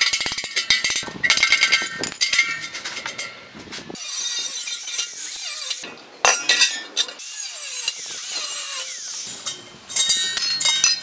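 Sharp metallic clinks and knocks, some of them ringing, as a steel expansion tank and its bolted bracket are struck and worked with hand tools. There is a louder knock about six seconds in and a quick run of clinks near the end.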